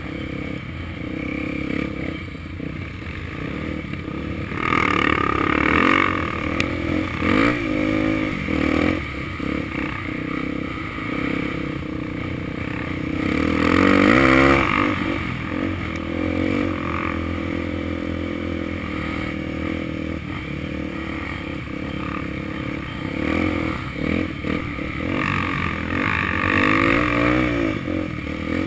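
Honda XR250 Tornado dirt-bike engine running with repeated bursts of revving as it accelerates, rising and falling in pitch several times. The loudest rev comes about halfway through.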